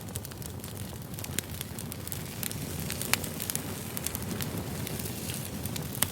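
Wood fire burning: a steady low rumble of flames with frequent sharp crackles and pops from the burning firewood, the loudest about three seconds in and near the end.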